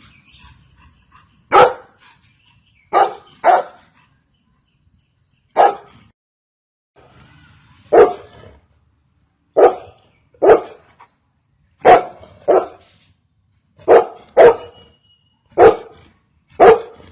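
Golden retriever barking: about a dozen short, loud barks, some single and some in quick pairs, with irregular gaps of one to two seconds.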